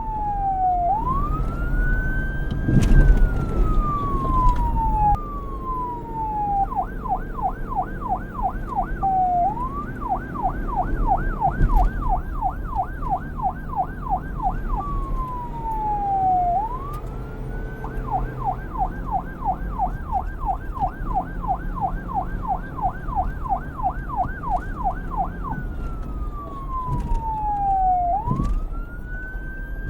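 Police siren switching between a slow wail, each rise and fall taking a few seconds, and a fast yelp of about four sweeps a second. It goes to yelp twice and back to wail, over a low rumble.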